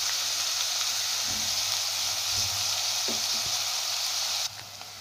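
Chopped onion, green peas and cumin seeds frying in hot oil in an aluminium kadhai: a steady hissing sizzle that drops abruptly to a softer sizzle near the end.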